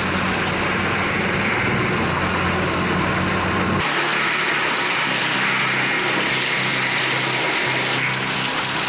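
Heavy tractor diesel engines running steadily under load while working mulching and disc attachments. About four seconds in the sound changes abruptly to a different machine with less deep hum.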